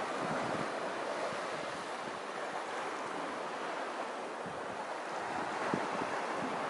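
Small waves breaking and washing up a sandy beach: a steady rush of surf. Wind buffets the microphone now and then, mostly in the last second or so.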